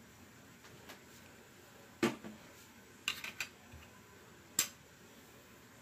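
Handling noise on the recording phone in a quiet small room: a sharp knock about two seconds in, a quick run of three or four clicks a second later, and another knock near the end.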